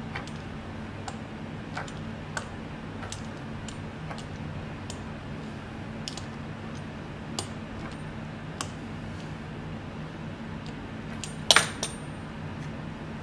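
Light scattered clicks and taps of a fluted pastry wheel and hands working fresh ravioli on a wooden board, over a steady low hum. Near the end, a sharper metallic clatter is the loudest sound.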